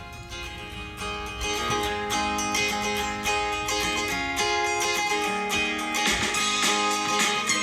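Background music: an acoustic guitar intro, plucked and strummed, the start of a song that later has a sung vocal.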